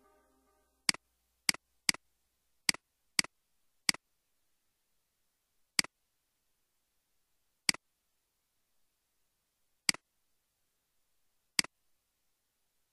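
Computer mouse clicks: ten sharp, single double-ticked clicks at uneven intervals, several close together in the first four seconds, then spaced a couple of seconds apart.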